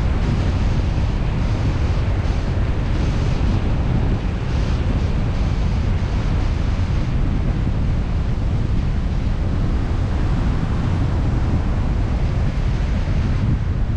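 Steady wind and road noise from a moving car, heaviest in the low end.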